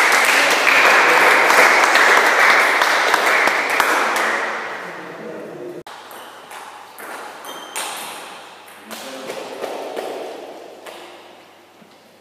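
Table tennis ball being hit back and forth in a rally: a series of sharp, separate pings and clicks off the paddles and table. Before the rally there are a few seconds of loud, dense noise mixed with voices.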